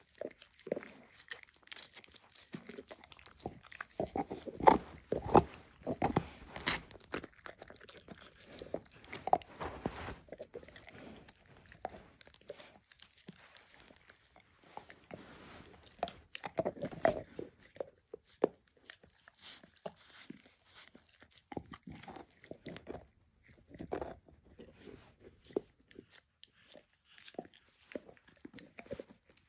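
Dog gnawing and licking a raw marrow bone: irregular spells of crunching and wet mouth sounds, with quiet pauses between.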